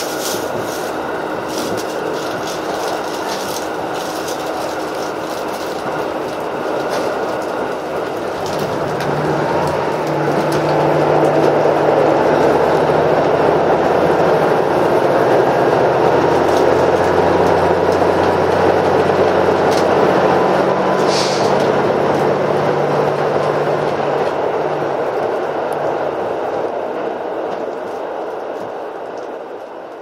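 Interior running noise of a KiHa 85 series diesel express railcar. Wheels click over rail joints at first, then from about nine seconds a louder, heavier rumble builds with a low diesel engine hum as the train crosses a steel truss bridge. The noise fades out near the end.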